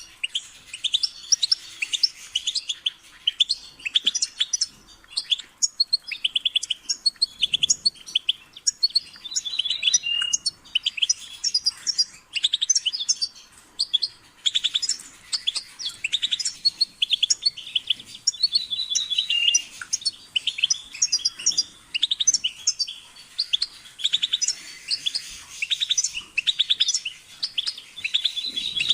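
European goldfinch singing: a continuous, rapid twittering song of quick varied notes, with a short clear held note returning about every ten seconds.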